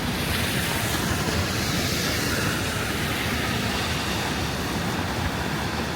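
Steady city street noise of passing traffic, with a hiss that swells in the first few seconds and then eases off as a vehicle goes by.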